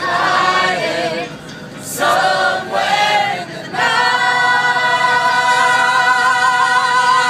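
A group of voices singing together without accompaniment, a couple of short sung phrases and then one long chord held from about four seconds in.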